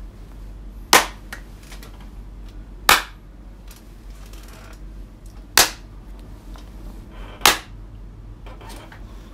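A person clapping their hands four times, slow single sharp claps about two seconds apart.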